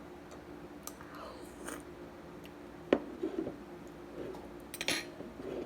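Close-up eating sounds from a bowl of noodle soup: chewing and mouth noises with a few sharp clicks and taps, the loudest about three seconds in and a small cluster near the end, over a faint steady hum.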